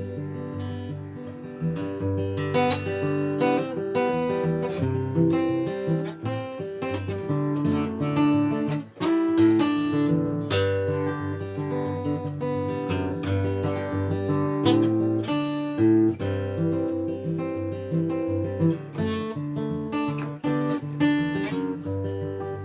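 Acoustic guitar playing an instrumental break, picked and strummed notes moving through the song's chords.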